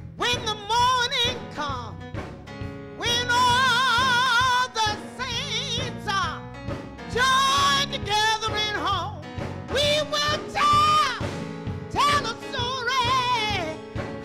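A solo voice singing into a microphone in a gospel style, with a wide vibrato and long held notes in phrases of a second or two.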